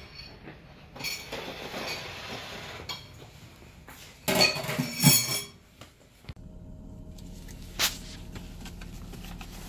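Dishes and cutlery clinking and clattering for about a second, then the steady low hum of a car running, heard from inside the cabin, with a single click.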